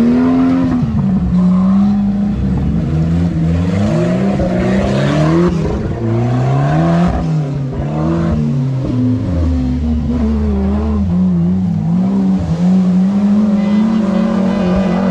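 Off-road race vehicle engine revving hard under load on a steep muddy climb. Its pitch rises and falls again and again as the throttle is worked.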